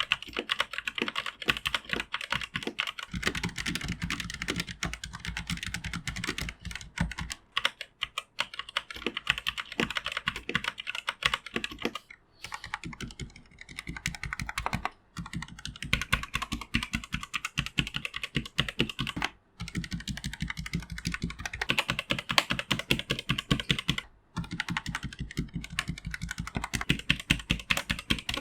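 Rapid typing on a 1stPlayer K7 mechanical keyboard with red linear switches, in several runs separated by short pauses. The runs compare the keyboard stock against the same keyboard with O-ring dampers fitted and the switches lubed.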